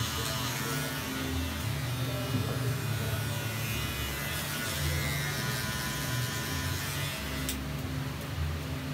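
Electric hair clippers running with a steady buzz, with one sharp click about seven and a half seconds in.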